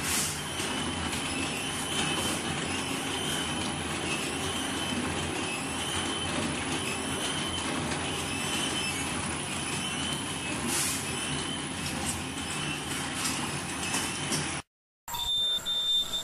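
Sanitary napkin making machine running: steady mechanical noise with a faint high whine and occasional light clicks. Near the end the sound drops out for a moment, then the machine is heard again with a steadier high whine.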